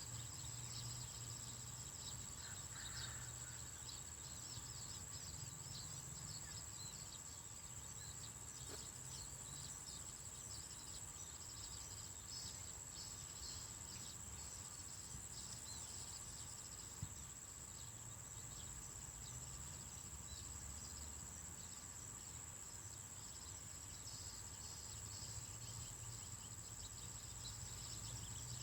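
Crickets and other insects chirring in a steady high drone, with fine rapid ticking chirps and a low steady hum underneath.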